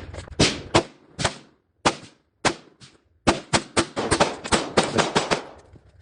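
Gunshots: five single shots a little over half a second apart, then a fast string of about ten shots in two seconds.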